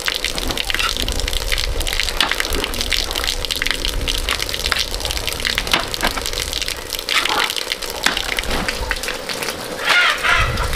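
Water gushing and splashing, with scattered sharp clicks and knocks.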